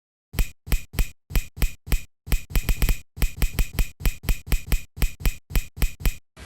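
A rapid series of sharp, identical percussive clicks, about three or four a second in an uneven rhythm with a quick flurry about two and a half seconds in: an edited-in sound effect of an outro.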